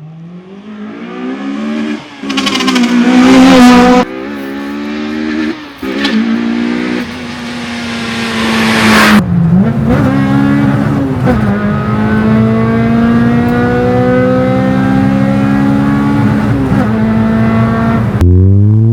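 Honda B16B four-cylinder VTEC engine, stroked to 1.8 litres, in a Civic EK9 Type R, accelerating hard with the revs climbing in pulls that break off sharply at gear changes. After a cut in revs about nine seconds in, the engine pulls more steadily with the revs slowly rising, then drops to low revs near the end and starts climbing quickly again.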